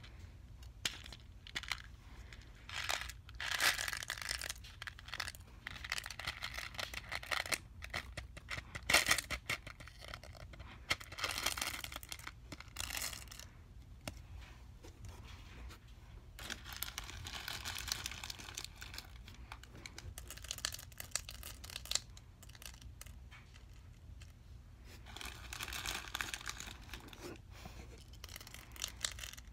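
Hands squishing and pulling white slime in a plastic tub, with plastic pony beads mixed into it: irregular crackling and tearing noises with many small clicks, coming in bursts with quieter gaps between.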